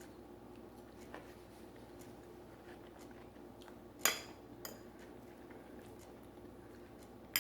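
A few light clinks of cutlery against a dinner plate in a quiet room: a sharp one about four seconds in, a softer one just after, and another near the end.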